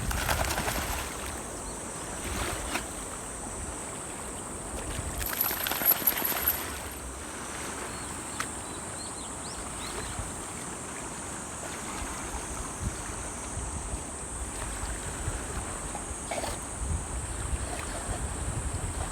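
Wind buffeting the microphone over a steady rush of water, with a louder noisy stretch about six seconds in and a thin steady high whine throughout.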